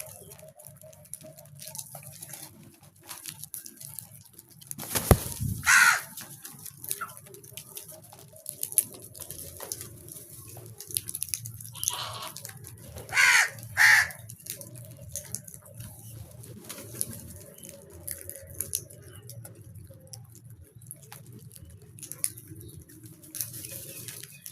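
Crows cawing: a harsh call about five seconds in, just after a thump, then three more calls close together around twelve to fourteen seconds. Small ticks and a steady low hum run between the calls.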